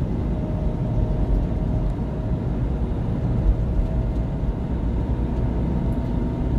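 Steady low rumble of a semi-truck on the move, heard from inside the cab: engine and road noise with a faint steady drone.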